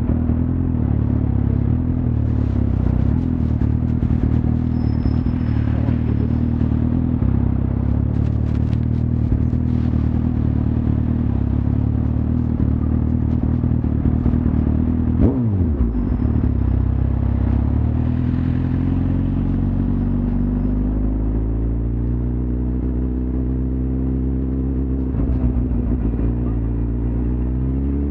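Suzuki GSX-R1000 inline-four engine running under way, its note steady for the first half. About halfway there is a sudden brief drop in pitch, then the revs climb slowly over the last several seconds and faster near the end.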